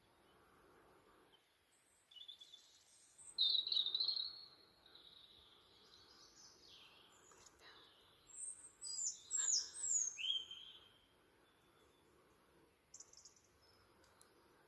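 A songbird singing: a run of high, varied, warbling phrases with several quick falling notes, starting about two seconds in and stopping a little after ten seconds, over faint steady background noise.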